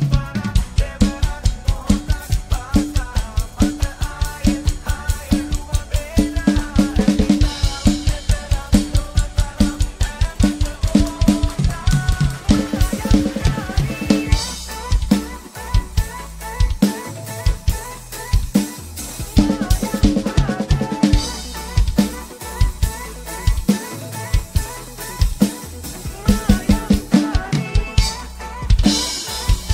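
Acoustic drum kit played live over a pop song's backing track during an instrumental passage: a steady kick and snare beat with cymbal crashes, the brightest near the end.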